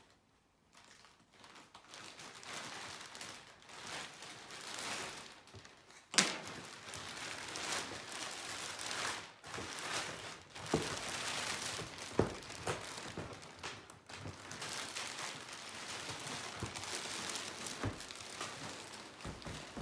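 Thin plastic wrapping crinkling and rustling as a cello case is worked out of a large plastic bag, with a few sharp knocks, the loudest about six seconds in.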